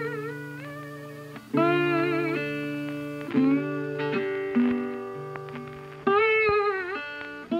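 Background music led by a guitar: long held notes, a new one struck every second or two, some bending and wavering in pitch.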